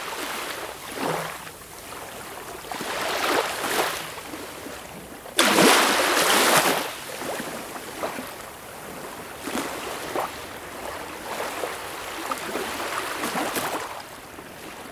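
Shallow sea water washing and lapping over sand, swelling and fading unevenly, with a sudden louder rush about five seconds in.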